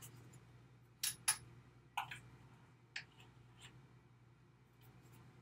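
A few light clicks and taps, about a second apart, from handling a baking powder container and measuring spoon while a half teaspoon is measured out.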